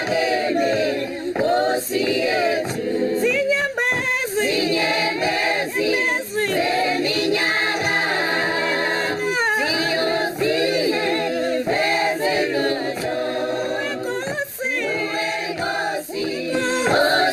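A choir singing, many voices in sustained harmony with little or no instrumental accompaniment.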